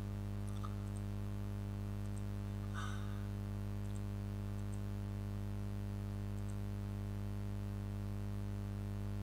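Steady low electrical hum with a few faint, scattered clicks.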